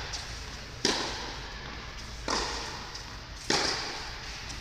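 Tennis rally: three sharp hits of the ball, roughly a second and a half apart, each ringing out in the hall's echo.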